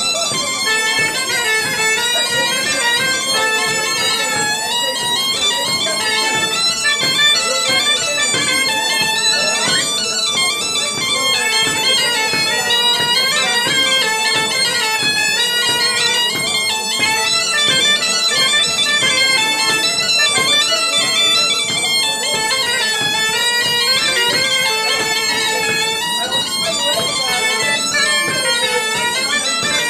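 A Breton bombarde and bagpipe pair plays a dance tune, the melody running over a steady held drone note.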